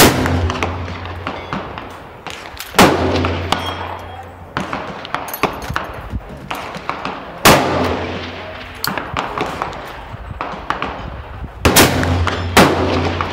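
Black-powder Martini–Henry rifle firing at the start and again near the end, each shot a sharp crack with a long fading echo. Two other loud gunshots fall between, about three and seven and a half seconds in.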